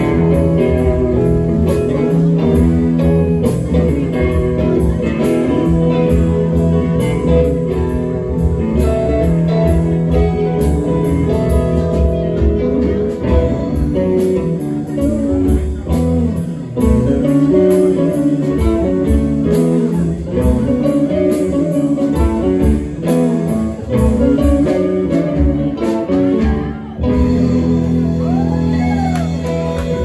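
Live band playing: electric guitars, bass guitar, keyboard and drum kit.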